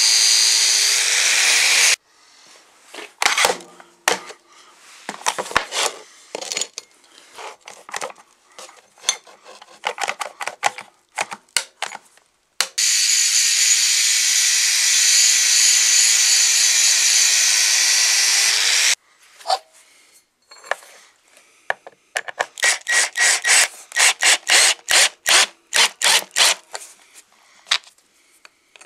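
Angle grinder running against the metal sole plate of an antique clothes iron, grinding off rust and scale in two steady stretches, one at the start and one of about six seconds in the middle. Between them come irregular short scraping strokes, and near the end a quick even run of rubbing strokes, about three a second.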